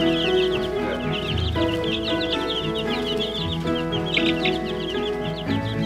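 A brooder of baby chicks and ducklings peeping without pause, many short high falling cheeps overlapping, over background music with held notes.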